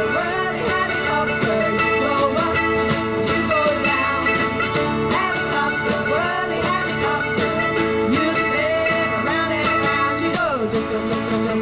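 A band playing a country-rock style song: guitar over a steady drum beat, with a lead melody sliding between notes.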